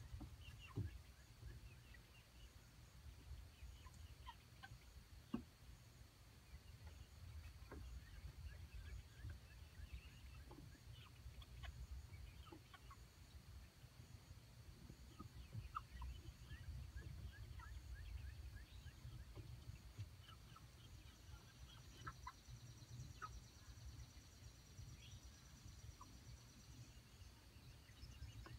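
Young chickens clucking and peeping softly with scattered short calls, over a low rumble, with a couple of brief knocks in the first few seconds.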